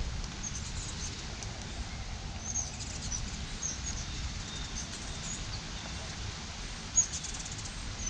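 Scattered short, faint high chirps of small songbirds off in the distance over a steady low background rumble, with one louder, sharper note about seven seconds in.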